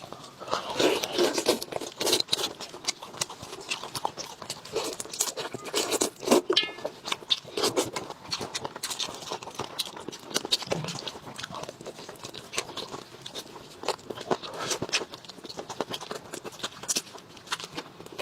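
Close-up eating sounds: a person chewing and smacking mouthfuls of food, with irregular wet clicks and crunches throughout.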